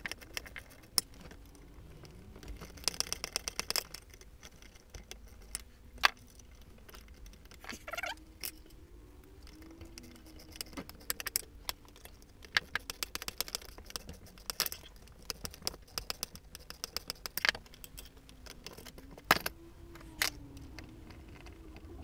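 Metal hand tool working the conrod cap bolts inside the crankcase of a small single-cylinder engine: runs of rapid metallic clicks, with a few single sharp knocks of tool on aluminium casing.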